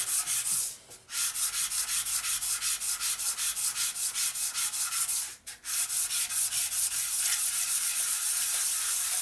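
Aluminum brake caliper bracket rubbed by hand on 3M Pro sandpaper over a flat surface, in quick, even back-and-forth strokes that pause briefly twice. The part is being sanded flat to take out the chatter marks left by machining.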